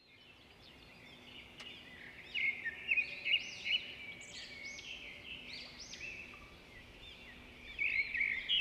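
Small birds chirping, many short rising-and-falling calls overlapping, fading in at the start, with louder flurries about two to four seconds in and again near the end.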